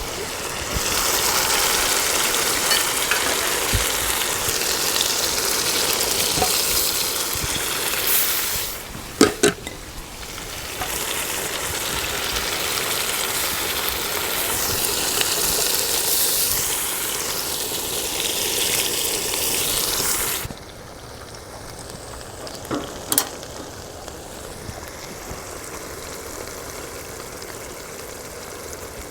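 Chicken karahi sizzling and frying in the pan as it is stirred, in two long stretches broken by a couple of sharp knocks about nine seconds in. The sizzle drops off suddenly about twenty seconds in, leaving a softer steady hiss with two more knocks.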